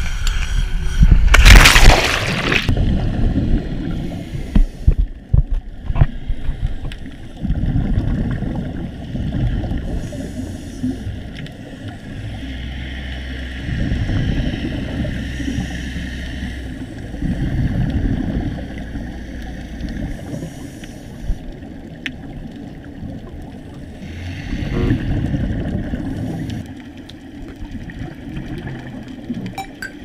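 A loud splash about two seconds in as a GoPro in its dive housing plunges into the sea, then muffled underwater rumble with a swell of bubbling every few seconds from scuba regulators exhaling.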